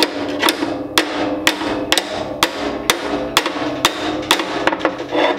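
Steady hand-hammer blows on steel, about two a second, each leaving a metallic ring, driving the jammed drive shaft out of a Welger SM4 disc mower's cutter bar. The shaft is stuck, which the owner takes as a sign that the cutter bar is bent.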